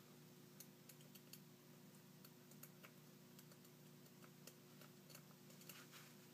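Faint, irregular light clicks of a pick and tension tool working inside a Bilock lock cylinder during picking, with a dozen or more small ticks scattered through the stretch.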